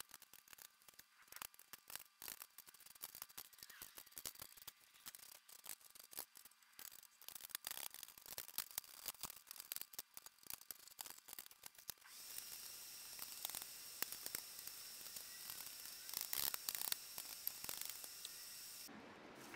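Quiet, rapid, irregular clicks and rustles of hands working on a jointer's metal stand and base. A steady hiss comes in about twelve seconds in, under further clicks.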